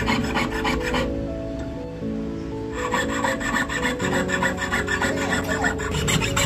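Jeweller's piercing saw cutting thin metal sheet on a wooden bench pin in quick back-and-forth strokes. The sawing pauses about a second in and starts again just before three seconds, with soft background music with held notes underneath.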